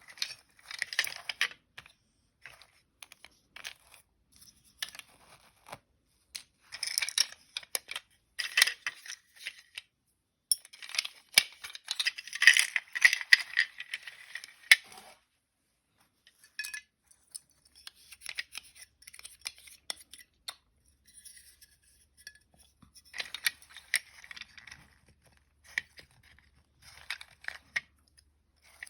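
Small hard toy parts being handled and worked on by hand: irregular clicks, rattles and scraping, busiest about halfway through, then a short pause and lighter clicking.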